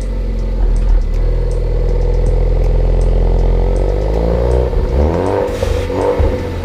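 Ford Focus ST engine breathing through a resonator-delete exhaust, idling steadily for about four seconds. It is then revved once, the pitch rising and falling back to idle.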